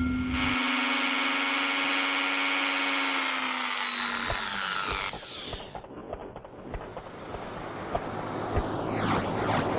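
A machine whine like a power-drill motor, holding a steady pitch for about four seconds, then winding down in pitch and stopping about five seconds in. Quieter mechanical clicks and rattles follow, and a hiss builds near the end.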